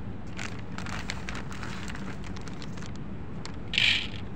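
Dry cat kibble clicking and rattling on a clear plastic lid as it is pushed about, with a short, louder rasp near the end.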